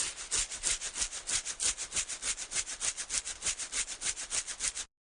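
Fast, even rasping strokes, about six a second, which stop abruptly near the end.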